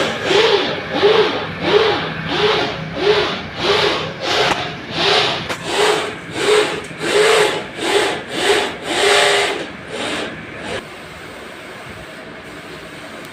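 Rhythmic back-and-forth scraping strokes, about one and a half a second, each with a short rising and falling squeal. They stop about ten and a half seconds in, leaving a steady low hum.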